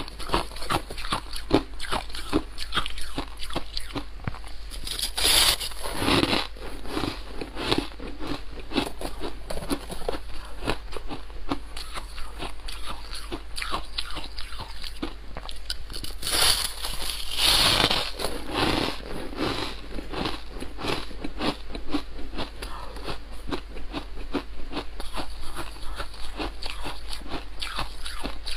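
Close-miked biting and chewing of clumps of fluffy white ice, a dense run of crisp crunches. It swells into louder bites about five seconds in and again around sixteen to eighteen seconds in.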